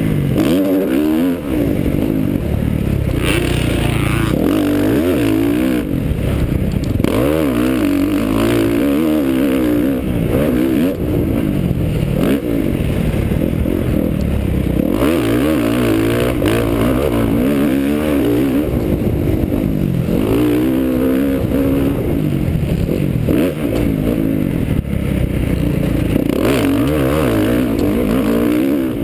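Motocross bike engine racing round a dirt track, heard from the rider's helmet camera: the revs climb and drop back again and again as the rider accelerates, shifts and backs off for turns and jumps.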